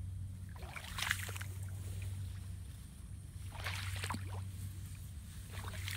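Water splashing and sloshing in three short bursts, about a second in, around four seconds in and again near the end, over a steady low hum.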